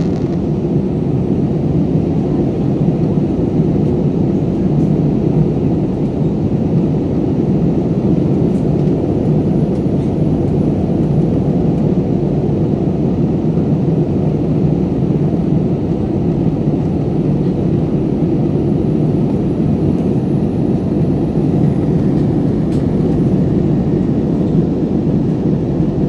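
Steady low roar inside a jet airliner's cabin at cruise: engine and rushing-air noise, even and unbroken throughout.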